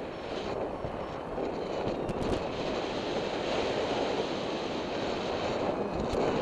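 Airflow over a paraglider pilot's camera microphone in flight: steady wind noise, with brief knocks about two seconds in and near the end.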